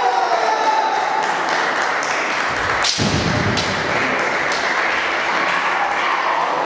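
Kendo bout in a reverberant gym hall: the fighters shout kiai while bamboo shinai crack together and feet stamp on the wooden floor, with one loud sharp hit about three seconds in.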